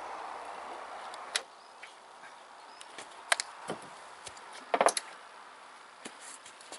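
A few scattered clicks and clunks of battery cables and a 12-volt lead-acid battery being handled as the battery is lifted out of a tractor's battery compartment, the loudest cluster of knocks about five seconds in.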